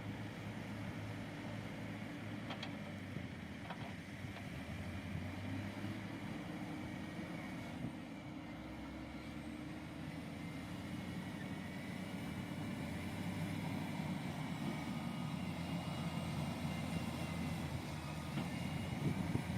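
Heavy construction machine's engine running steadily, a low drone that grows slightly louder over the last several seconds, with a couple of faint clicks near the start.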